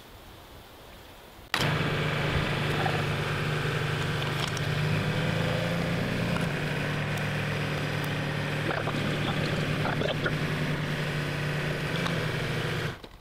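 Mahindra compact tractor's diesel engine running steadily while the tractor is driven. It comes in suddenly about a second and a half in and cuts off just before the end, with a few light knocks over it.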